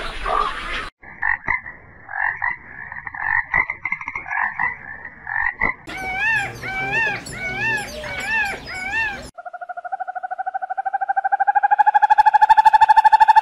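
A run of animal calls in separate clips. First comes a string of short chirping calls. About six seconds in, repeated rising-and-falling calls take over. After a short break there is a long, fast-pulsed trill that rises slowly in pitch and grows louder.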